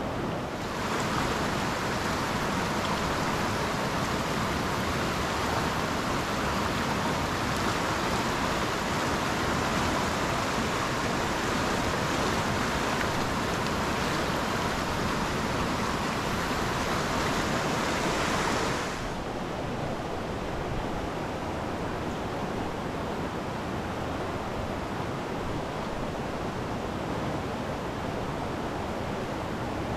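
Fast, rain-swollen creek water rushing steadily. A brighter hiss over the rush drops away suddenly about two-thirds of the way through.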